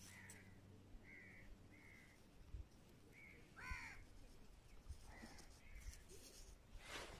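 Faint short bird calls, about eight of them spread over several seconds, with one louder call a little before the middle; otherwise near silence.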